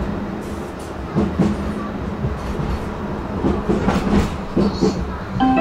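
A tram running along the track: a steady low rumble and hum, with scattered clicks and knocks from the wheels on the rails. Near the end, a chime of several notes begins, signalling the next-stop announcement.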